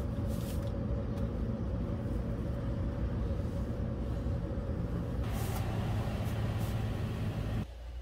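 Steady low rumble with a constant hum. A hissing noise joins about five seconds in, and the sound cuts off suddenly near the end.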